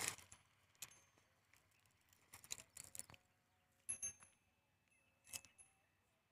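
Near silence broken by a few faint, sharp clicks and crackles, scattered irregularly.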